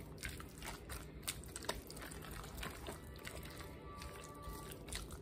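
Spatula stirring a thick, wet ricotta, egg and diced-meat filling in a glass bowl: faint squelching with scattered light taps of the spatula against the glass. Faint music plays underneath.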